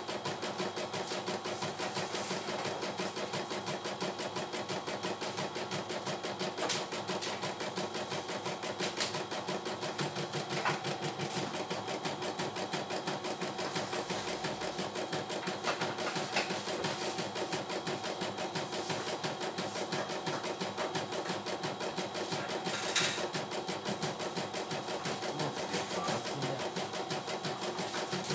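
CNY E900 computerised embroidery machine stitching out a design: a rapid, steady needle chatter as the hoop is moved along, with a few sharper clicks standing out.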